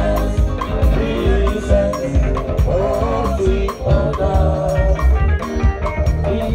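Live band playing upbeat gospel music: a drum kit keeps a steady beat over heavy bass, with a melody line on top.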